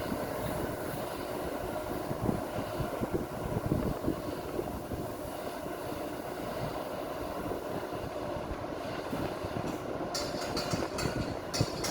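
Heavy machinery running with a steady rumble and rattling, with a few short hissing bursts near the end.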